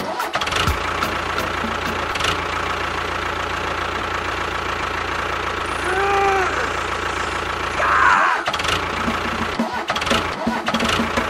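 Tractor engine starting and then running steadily as the model tractor drives. A short tone rises and falls about six seconds in, and a brief louder sound comes near eight seconds.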